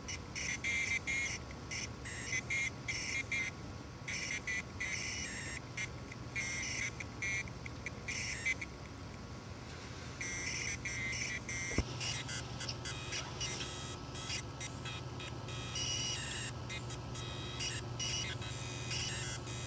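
Solid-state drive making high-pitched electronic chirping and buzzing in irregular short spurts that start and stop, typical of coil whine, over a steady low hum.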